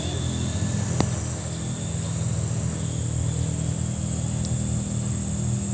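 Crickets chirring steadily in a high, continuous drone over a low steady hum, with a single sharp click about a second in.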